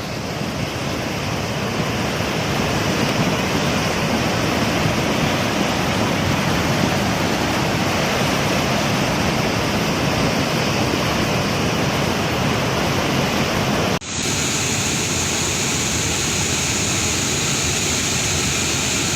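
Steady rushing noise of floodwater or torrential rain. About fourteen seconds in it cuts suddenly to a second, hissier stretch of the same kind of noise.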